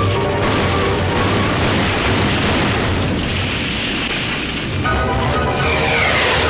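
Cartoon soundtrack music over a continuous noisy rumble from a derailed cartoon train careening across open ground. A falling whistle-like glide comes near the end.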